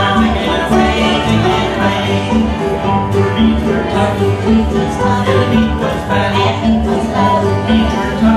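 Live acoustic bluegrass band playing: banjo, mandolin and acoustic guitar picking over an upright bass line that pulses on the beat, with singing at the microphones.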